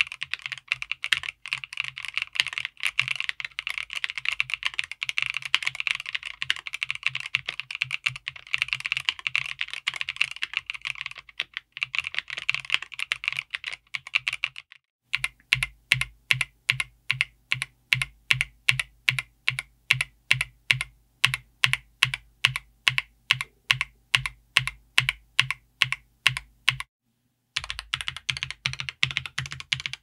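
Monsgeek ICE75 gasket-mount mechanical keyboard with Akko V3 Crystal Pro linear switches and PC keycaps, typed on fast and continuously with a clacky sound. About halfway, after a brief pause, a key is struck over and over at a steady four or so strokes a second, each with a deeper thud, for about twelve seconds. After a short silence, fast typing resumes near the end.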